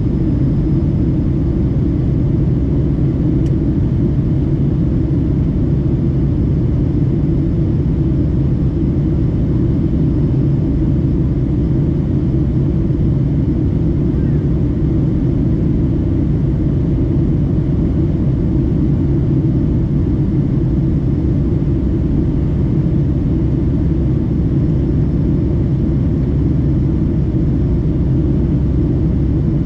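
Boeing 757-200 airliner in flight: a steady, unchanging low rumble of engines and airflow.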